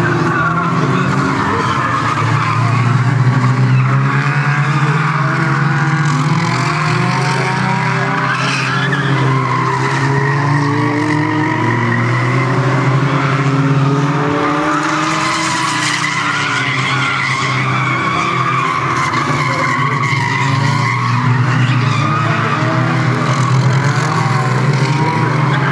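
Engines of several small hatchback race cars running hard around a short oval, their pitches rising and falling as the drivers accelerate and lift off, overlapping continuously.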